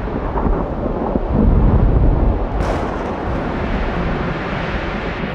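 Deep rumbling of thunder, swelling about a second and a half in and then holding steady.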